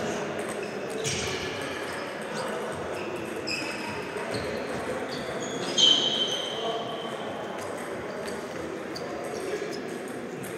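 Sports hall background of table tennis balls clicking on tables and bats at nearby matches, scattered and irregular, with a louder click about six seconds in.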